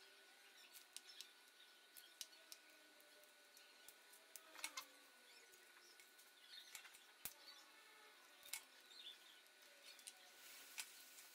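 Near silence with faint scattered clicks and rustles of pliers and wires being handled while insulation is stripped from a motorcycle wiring harness.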